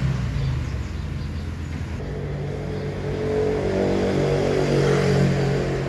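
A motor vehicle engine running, a steady hum that grows louder from about three seconds in, peaks near five seconds, then eases slightly.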